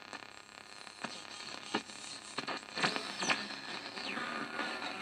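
Cotek AM/FM radio hissing with static between stations as it is tuned, with scattered clicks and a couple of whistles sliding down in pitch about three and four seconds in.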